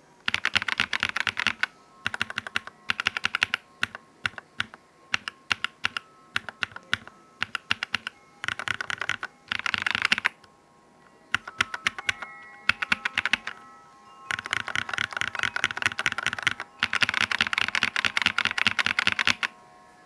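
Typing test on a Royal Kludge RK84 mechanical keyboard fitted with stock, unlubricated Akko Radiant Red linear switches. Fast bursts of keystrokes alternate with slower, separate key presses, with short pauses between.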